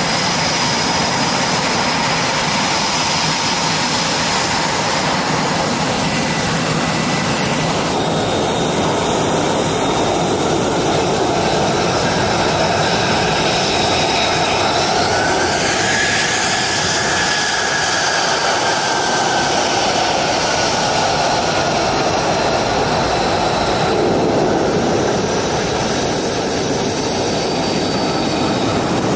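Fighter jet engines running at taxi power: a loud, steady turbine roar with high whistling tones. About halfway through, one engine's whine rises in pitch and then slowly sinks.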